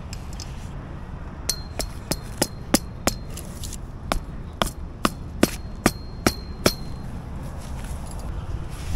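A mallet driving a metal tent stake into the ground: about a dozen sharp blows in two quick runs, two to three a second, with a short high ring from the stake after many of them.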